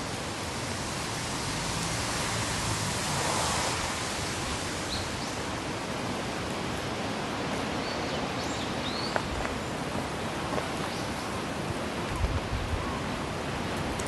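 Steady hiss of rain and strong wind, swelling with a gust about three seconds in. A few faint high chirps come in the middle and a few low bumps near the end.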